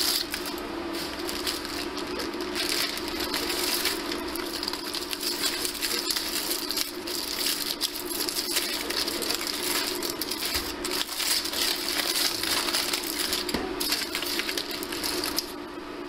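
Raw chicken breast sizzling in hot liquid in an enamelled cast iron pot: a dense, crackling patter of small pops that stops abruptly near the end, over the steady hum of the cooktop.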